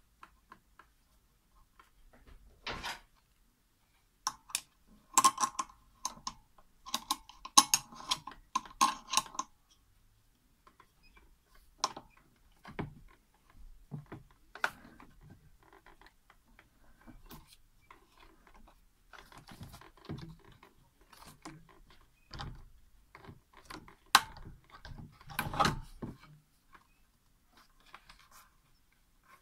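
Screwdriver and ribbed rubber belt clicking and scraping against a metal pulley as the tight belt is pried on, in short irregular clicks and rasps. There is a dense run of sharp clicks about five to nine seconds in, and another cluster near the end.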